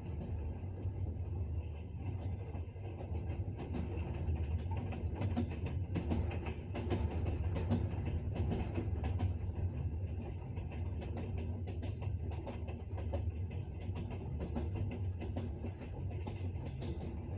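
A night train's wheels clacking over the rail joints at speed, many quick clicks over a steady low rumble, busiest around the middle.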